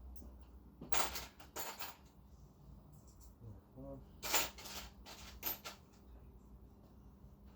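Small loose metal parts such as washers and nuts clinking against each other and on a hard surface: several sharp, ringing clinks, the loudest about four seconds in.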